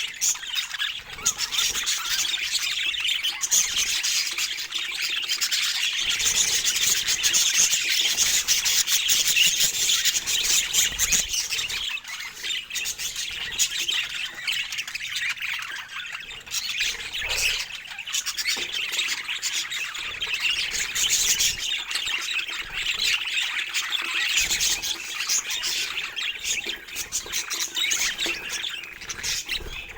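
Budgerigars chattering without a break: a dense stream of quick, high chirps and warbles.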